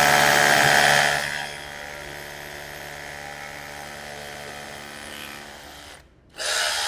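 DeWalt DCH133N cordless SDS-plus rotary hammer hammer-drilling an 8 mm hole into a concrete floor. It runs loud for about the first second and a half, then quieter and steady until it stops about six seconds in. A short second burst follows near the end.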